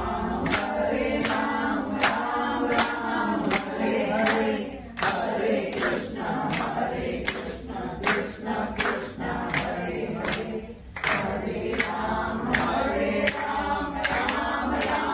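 A small group singing a Hindi devotional bhajan together, kept in time by hand claps and a ringing metallic beat at about two to three strikes a second.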